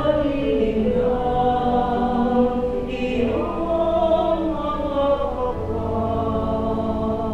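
A choir singing slow, held notes in several voices, as music.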